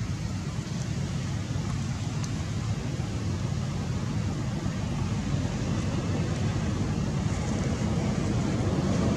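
Steady low background rumble, with a few faint high clicks.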